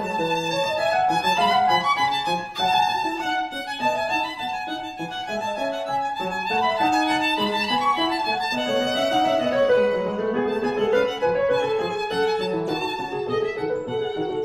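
Music led by a violin, playing a melody of changing notes over lower sustained tones.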